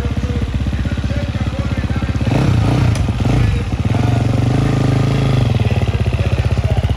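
Motocross motorcycle engines running with a fast, steady low pulse, and a bike revving up and down a couple of seconds in before holding a loud steady drone.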